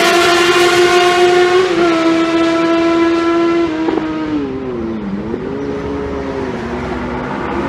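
Superbike engine running at high revs, holding one steady note that falls in pitch about four seconds in, dips, then climbs again and levels off.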